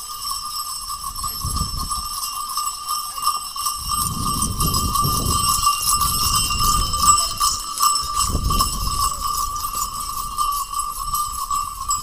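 Bells on a pair of working Khillari bullocks jingling steadily as they pull a plough, with a few low rumbles.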